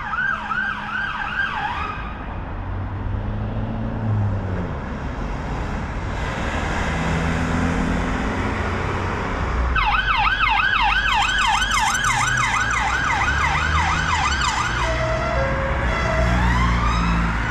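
Emergency vehicle sirens on a busy road: a fast up-and-down yelp briefly at the start, then again for about five seconds from about ten seconds in, followed by a slow rising wail near the end. Passing traffic rumbles underneath.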